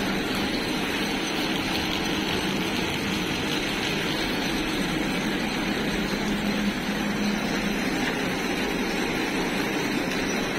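BOPP tape slitter-rewinder running, a steady machine noise with a constant hum as its shafts and chain drives turn, slitting film and winding it onto rolls of tape.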